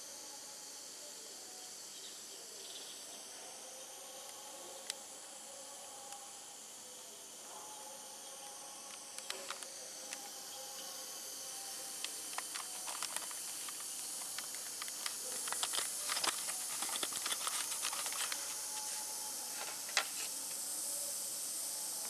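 An electrolysis cell fizzing as it strips silver plating. Gas bubbles rise through the glass jar of electrolyte, giving a steady hiss with fine crackling pops that grow denser about halfway through.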